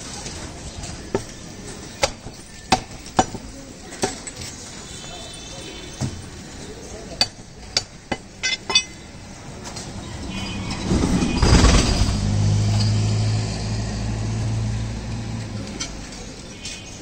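Irregular sharp knocks and clinks of butchering work, about a dozen in the first nine seconds. About ten seconds in, a louder low engine-like drone swells up, peaks with a rush, and fades over the next few seconds.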